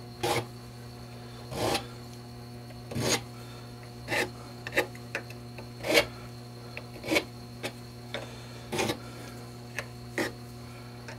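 Hand file scraping across the percussion nipples of a Colt 1860 Army revolver clamped in a vise, in about ten short separate strokes, roughly one a second. The nipples are being filed down because they are too long, and their tops rounded off. A steady low hum runs underneath.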